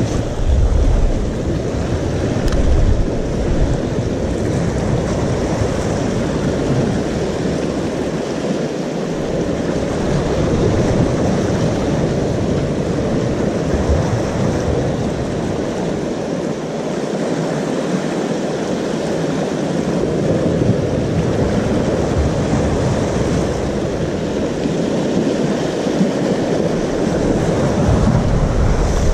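Sea waves washing and breaking over rocks as a steady rushing, with gusts of wind rumbling on the microphone that come and go.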